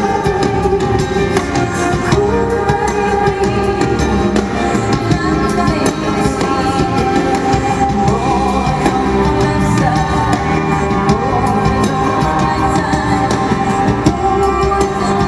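Live concert recording of a woman singing over band accompaniment, played loud and continuous.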